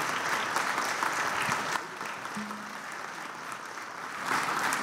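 Audience applauding: dense clapping that eases off about two seconds in and swells again near the end.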